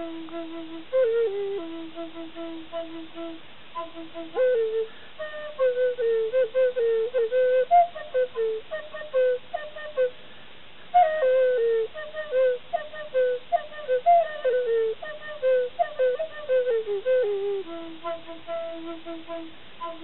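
Native American flute played solo, improvising a melody: a long held low note at the start and again near the end, with quicker runs of short falling phrases in between.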